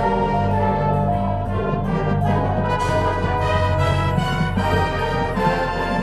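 High school marching band playing, with the brass section sounding sustained chords over low held notes and percussion hits.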